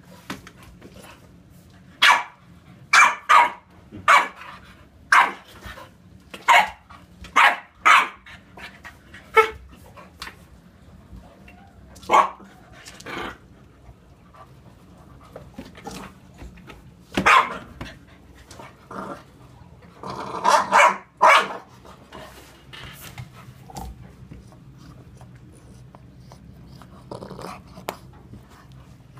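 Bulldogs barking at play: short, sharp barks, a quick run of about ten in the first ten seconds, then a few scattered ones and a close cluster about twenty seconds in, growing sparse toward the end.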